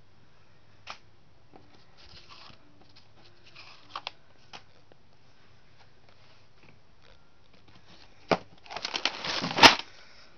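Handling noises: a few faint clicks and rustles, then near the end a sharp knock followed by about a second of loud crackling rustle.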